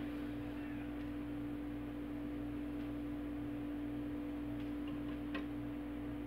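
Silent lead-out groove of a record playing on a Kenwood KD-3070 direct-drive turntable after the last track ends: a steady hum with a few faint surface ticks, the clearest about five seconds in.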